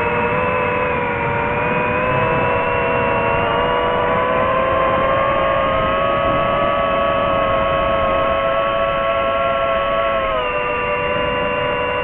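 DJI FPV drone's motors and propellers whining steadily in flight, the pitch creeping up with throttle. The pitch drops suddenly about ten seconds in as the throttle eases off.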